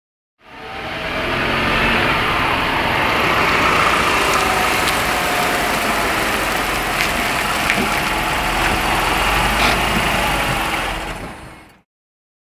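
A minivan's engine running steadily, with a low rumble and a wide hiss, faded in at the start and faded out near the end.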